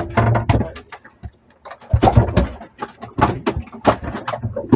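A quick, irregular run of knocks and rattles, like gear handled on a boat deck, with muffled voices.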